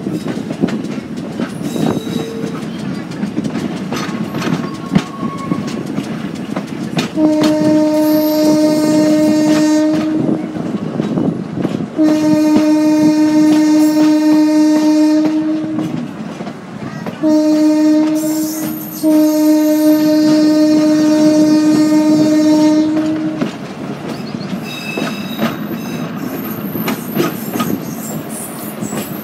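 Train horn sounding the grade-crossing pattern, two long blasts, one short and one long, each a single steady note, over the clickety-clack of wheels rolling over rail joints.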